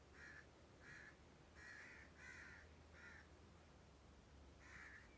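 A crow cawing faintly, six short caws in a row with a pause before the last.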